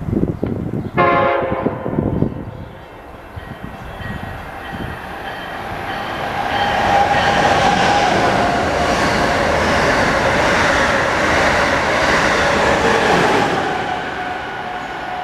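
Amtrak Acela Express high-speed electric train sounding a short horn blast about a second in, then passing through the station at speed: a rushing roar of wheels and air that builds, holds loud for several seconds and eases off near the end.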